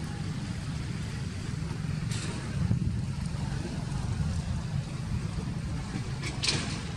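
Steady low rumble of outdoor background noise, with two brief high hissing sounds, about two seconds in and again near the end.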